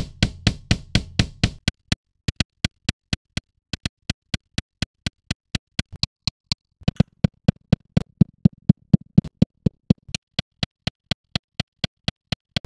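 Kick drum playing back in a steady run of hits, about four or five a second, processed by a transient designer that adds a sharp synthetic click to each attack. The low body of the kick is heard for the first couple of seconds, drops out, comes back about seven seconds in, and drops out again, leaving only the clicky attacks.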